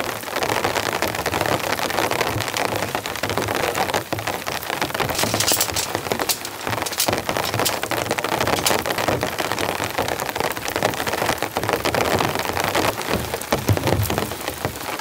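Heavy rain pattering on a tarp overhead: a dense, steady downpour with many sharp individual drop hits.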